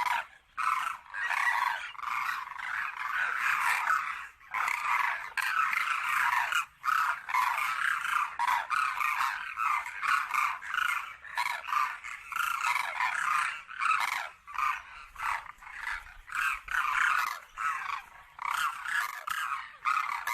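A flock of cranes (koonj) calling without pause, many short overlapping calls.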